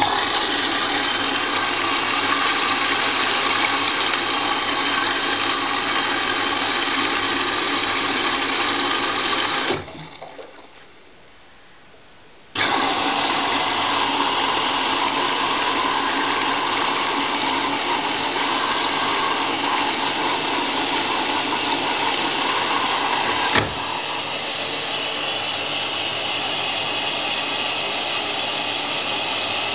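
Candy GrandO Plus washing machine filling with water on its wool cycle: a steady rush of incoming water that starts suddenly, cuts off after about ten seconds, starts again about three seconds later, and drops slightly in level after a click later on.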